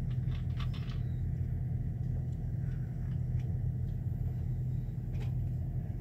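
Truck engine running, heard from inside the cab as a steady low drone.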